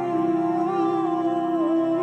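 Background music: a slow, soft melody of long held notes that step gently from one pitch to the next.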